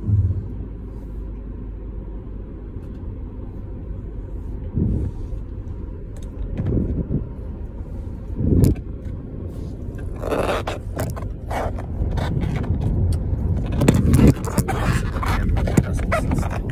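Low, steady rumble of a car's engine and tyres heard from inside the cabin as the car moves off slowly. A few thumps come in the first half, then scattered clicks, rattles and scrapes in the second half.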